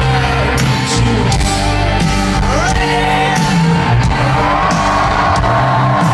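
Live rock band playing loudly through a big festival PA, heard from within the crowd, with singing and fans shouting and whooping along.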